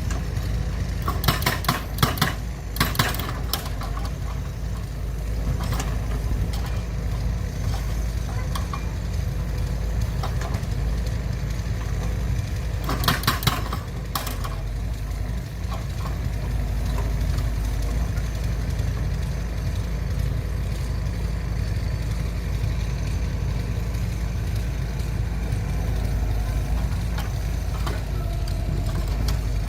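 Steady low mechanical drone, like an engine or motor running. Short clusters of sharp clattering clicks come about a second in and again around thirteen seconds in.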